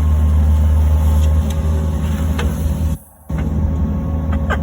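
Excavator engine running steadily with a low hum, cutting out abruptly for a moment about three seconds in and then carrying on.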